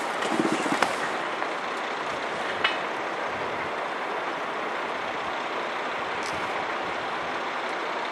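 JR DD51 diesel-hydraulic locomotive idling close by: a steady engine noise, with a couple of faint clicks.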